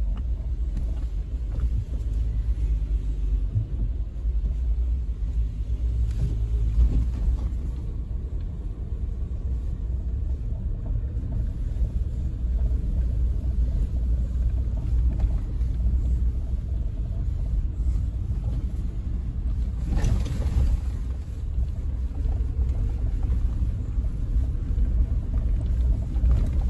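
Suzuki Jimny driving along a gravel forest track, heard from inside the cabin: a steady low rumble of engine and tyres on the loose surface, with a short louder burst of noise about twenty seconds in.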